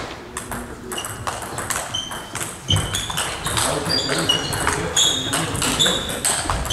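Celluloid-plastic table tennis balls being struck by bats and bouncing on tables across several games at once: an irregular patter of sharp clicks, with short high pings from the bounces.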